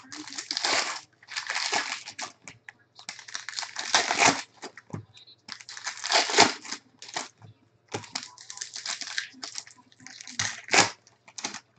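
Shiny foil baseball card pack being torn open and peeled apart by hand: crinkling and tearing of the wrapper in six or seven short spells with brief pauses between.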